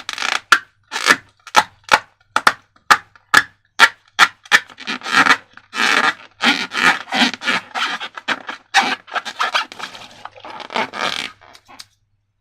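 Quick, irregular scraping and rubbing strokes from slime being worked by hand or utensil, several a second. They break off suddenly about a second before the end.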